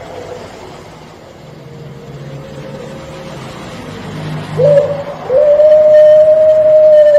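Puter pelung dove cooing: a short rising note about four and a half seconds in, then one long drawn-out coo, steady and slightly falling, that begins just after five seconds and carries on past the end.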